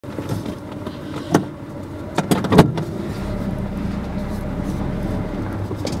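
Car moving slowly, heard from inside the cabin: a few sharp knocks in the first half, the loudest about two and a half seconds in, then a steady low engine and road rumble.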